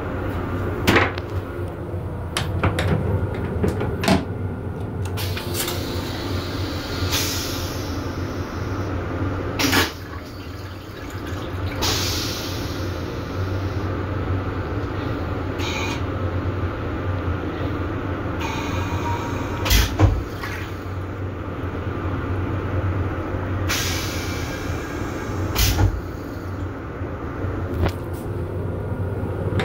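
Steady low rumble and hum of a Metro-North M7 electric railcar, heard inside its small restroom, with sharp knocks and rattles every few seconds.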